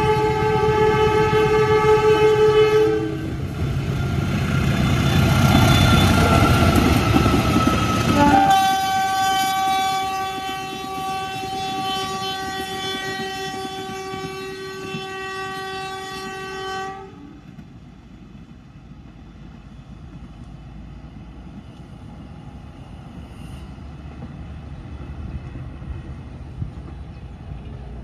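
Diesel locomotive horn of a CC 204 sounding two long chord blasts of several tones, the first ending about 3 seconds in and the second running from about a third of the way in until it cuts off about two-thirds of the way through. Between the blasts is the louder rumble of the train passing close. After the horn stops, a fainter rumble and clatter of passing coaches remains.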